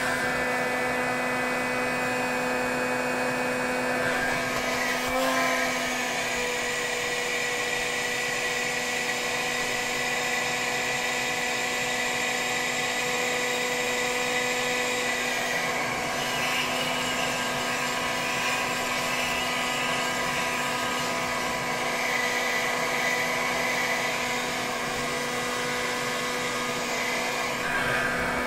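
Electric heat gun running steadily with a whirring hum, blowing hot air into a liquid-nitrogen CPU cooling pot to warm it back up from deep cold. Its tone shifts slightly a few times.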